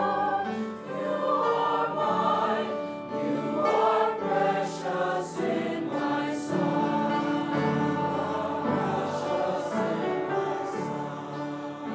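A youth choir singing a slow sacred song together, many voices on held notes, with the 's' sounds of the words heard clearly.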